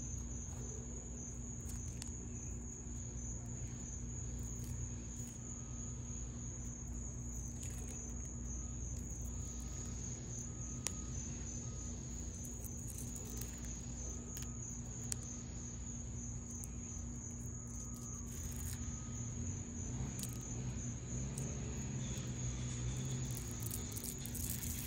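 Insects trilling steadily in a fast, even, high-pitched pulse over a low rumble, with a few faint short clicks.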